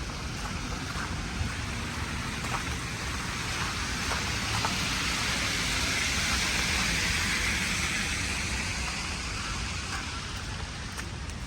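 Steady outdoor hiss over a low rumble. It swells to its loudest about halfway through and then fades again.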